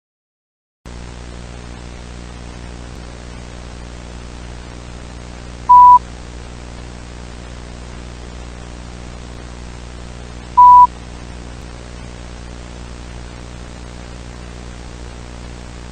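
Steady broadcast static hiss with a low hum, starting after about a second of dead silence, broken twice by a short, very loud high beep about five seconds apart.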